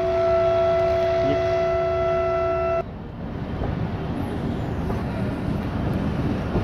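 Train horn sounding one long steady blast that stops abruptly about three seconds in, followed by the steady rumble of the train running along the track.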